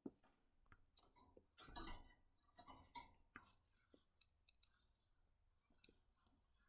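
Faint, irregular clicks, taps and short rustles from finches hopping and pecking about a wire cage, the busiest stretch about two seconds in.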